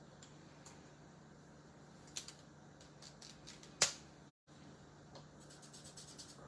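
Plastic markers being handled: a small click about two seconds in, then a sharp snap of a marker cap coming off just before four seconds. Near the end come light, quick taps of the marker tip dabbing colour onto card.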